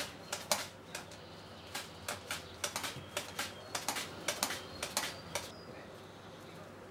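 Onion being sliced on a plastic mandoline: a quick run of short, crisp slicing strokes, two or three a second, that stop about five and a half seconds in.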